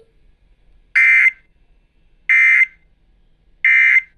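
Emergency Alert System End of Message signal: three short bursts of SAME digital data tones about 1.3 s apart, marking the end of the severe thunderstorm warning broadcast.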